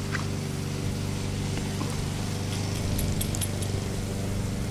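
A steady low mechanical hum, with a few faint light clinks about halfway through.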